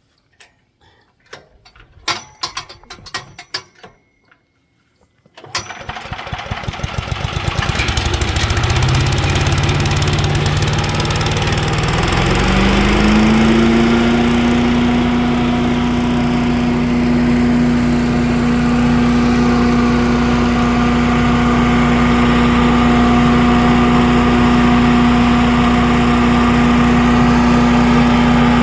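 A few clicks and knocks, then a woodchipper's small gasoline engine starts about five seconds in, climbs in speed over several seconds and runs steadily at full speed.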